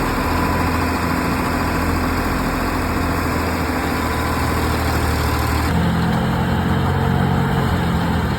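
Farm machine engine running steadily under load. About six seconds in, its note shifts lower and its pattern changes.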